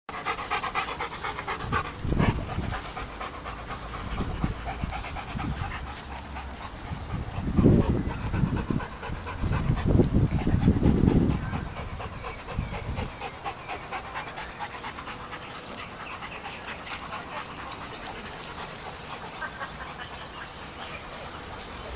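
Welsh terrier puppy panting close by while pawing and digging in loose soil, with louder low scuffing bursts in the middle.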